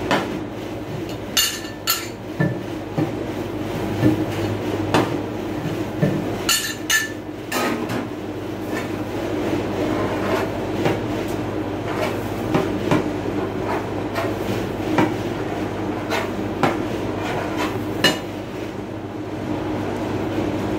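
Metal spatulas tapping, clinking and scraping on the frozen steel plate of a rolled-ice-cream machine, sharp strikes at irregular intervals, over the steady hum of the machine's refrigeration.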